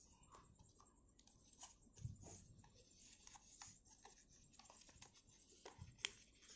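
Faint crinkles and soft taps of a sheet of origami paper being folded and creased by hand on a cutting mat, with one sharper click near the end.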